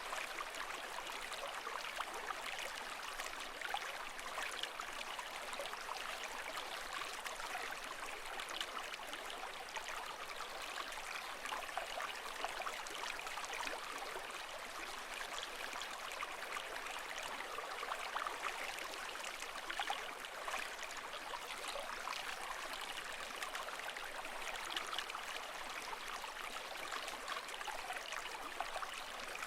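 Water trickling and bubbling steadily at an even level, with no waves breaking.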